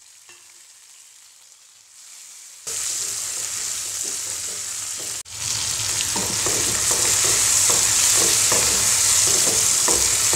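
Onions, tomatoes and potato cubes frying in hot oil in a nonstick pan, stirred with a wooden spatula. After a quiet start the sizzling comes in about three seconds in, cuts out for an instant about five seconds in, then carries on louder with the spatula scraping and stirring in a steady rhythm.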